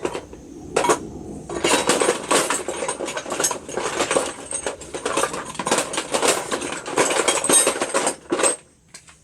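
Loose metal hand tools and hardware clinking and rattling in quick, irregular clicks as they are rummaged through by hand. The clatter stops a little before the end.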